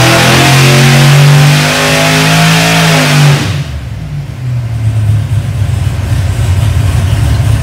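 Naturally aspirated V8 running on an engine dyno, pulled hard at high revs with its pitch climbing. About three and a half seconds in it lets off and drops back to a lower, uneven, choppy run.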